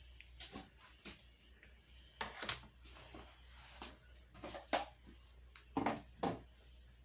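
Scattered knocks and clicks, a few louder than the rest, over a low steady hum.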